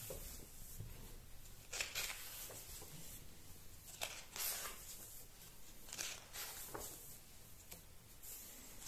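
Paper pages of a large hardcover comic album being turned one after another: several short swishes and rustles of the sheets.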